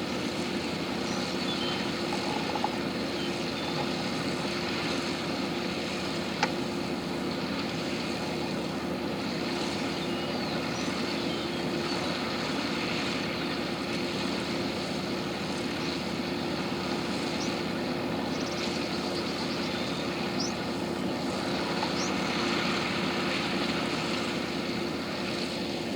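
Tractor engine running steadily while driving a round hay baler as the full bale is wrapped with twine, with a constant hum. A single sharp click about six seconds in.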